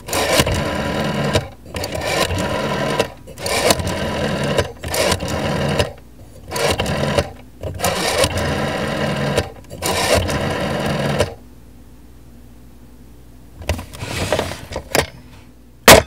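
Rotary telephone dial being turned and let go digit after digit: about seven whirring, clicking returns, each lasting from half a second to a second and a half with short gaps between. After a pause comes a quieter run of clicking, then a single sharp click just before the end.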